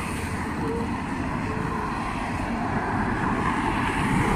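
Road traffic: cars driving past on a multi-lane road, growing louder near the end as a Ford Mustang passes close by.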